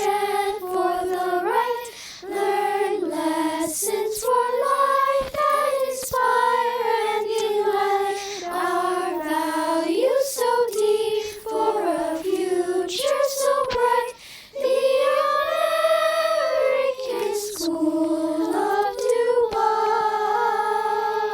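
A children's choir singing the school alma mater in slow, held notes.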